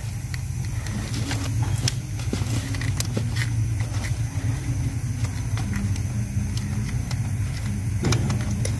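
A steady low hum with a few scattered light metallic clicks as the hydraulic brake booster's 12 mm mounting nuts are worked loose by hand and tool.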